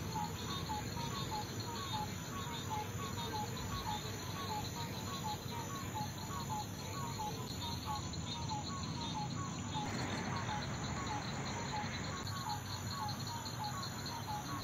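Night insect chorus of crickets and katydids: a steady high trill with a short chirp repeated a few times a second.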